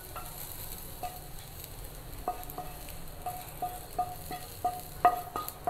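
Wooden spatula scraping and knocking butter-fried sweet corn kernels out of a nonstick pan into a bowl: a string of light taps, each with a short ring, coming more often after about two seconds, over a faint sizzle from the hot pan.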